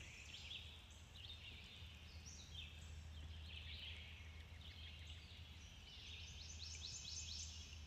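Faint chorus of wild birds calling: many short chirps and whistles, with a quick trill of rapid notes near the end, over a low steady rumble.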